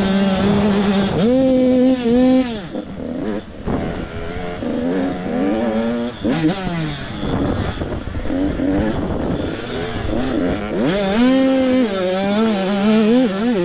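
Engines of Supermini-class motocross bikes revving and shifting on the track, pitch rising and falling with the throttle, with several bikes heard at once. Loud at first, it fades a little in the middle and comes up loud again near the end as a bike nears.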